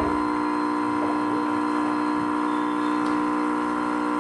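Single-serve coffee machine brewing into a mug, its pump giving a steady electric hum.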